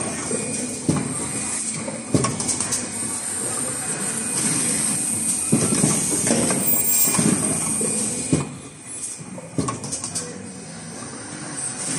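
Automatic N95 cup mask production machine running: repeated knocks and clatter from its mechanisms over a steady high hiss, quieter for a couple of seconds near the end.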